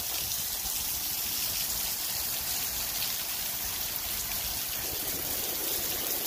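Steady rain falling and running off a roof overhang: an even, unbroken hiss.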